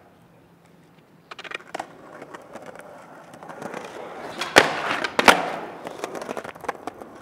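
A skateboard rolling, its wheel noise growing louder, with two loud sharp cracks of the board about three-quarters of a second apart a little past the middle, then rolling away more quietly.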